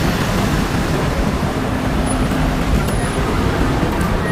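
Steady traffic noise of car engines running and cars moving slowly past.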